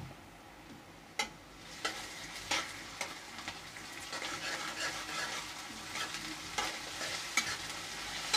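Chopped onions and ginger-garlic paste frying in hot oil in a kadhai while a spatula stirs, with sharp clicks of the spatula knocking and scraping against the pan from about a second in. The sizzling grows louder about halfway through as the mix is stirred.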